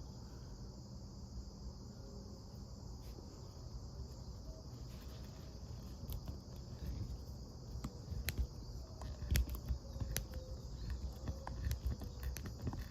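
Small clicks and ticks of a multitool bit driver turning small screws in by hand, growing more frequent in the second half, over a steady high-pitched drone in the background.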